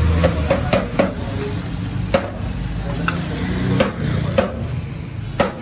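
Metal ladle clinking and scraping against a wide steel serving tray while broth and meat are scooped into a bowl: a run of sharp metallic clinks, four close together in the first second, then a few more spaced out, over a low steady background hum.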